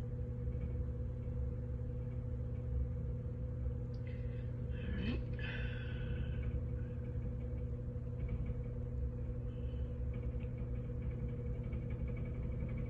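Steady low hum with a constant tone underneath. About five seconds in there is a short pitched sound that rises in pitch.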